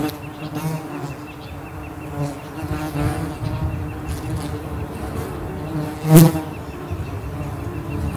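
A flying insect buzzing close to the microphone, its hum wavering in pitch as it moves about, with a single sharp knock about six seconds in.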